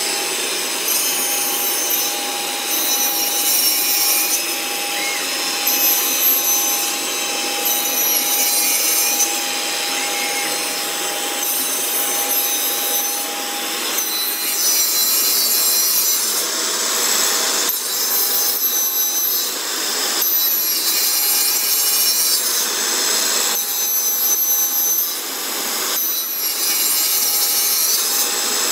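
Circular saw unit of a Casadei Multi Ranger RS 4221 CNC machining centre cutting through a wood panel: a loud rasping cut with a high whine from the spinning blade.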